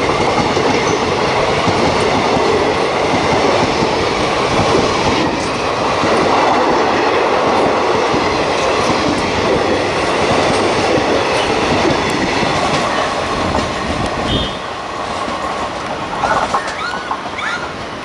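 Passenger coaches of an express train rolling past at speed, wheels clattering over the rail joints. The noise eases about fifteen seconds in as the last coach goes by and draws away.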